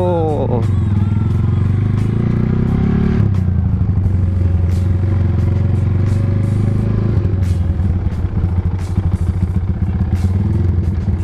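Motorcycle engine running steadily under way, its firing pulses loud and even, with the engine note dropping a little about three seconds in.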